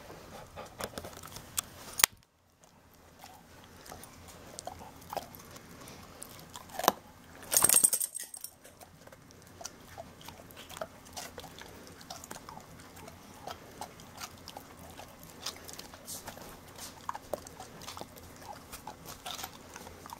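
Weimaraner chewing raw carrot: an irregular run of crisp crunches and wet mouth clicks, with a sharp louder crunch about two seconds in and a louder burst of crunching near eight seconds.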